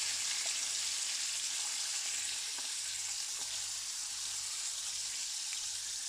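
Trout fillets frying in butter and olive oil, a steady sizzling hiss with a few faint crackles.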